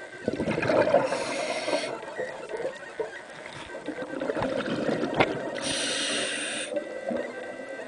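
Underwater sound of a scuba diver breathing through a regulator: two gushes of exhaled bubbles, each about a second long, one about a second in and one about six seconds in. Between them come a low rumble of water and a sharp knock a little after five seconds.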